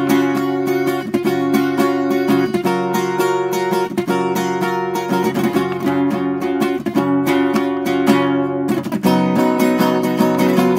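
Acoustic guitar playing a math rock / midwest emo riff of rapidly picked notes ringing into one another, with a short break about nine seconds in before a new strong attack.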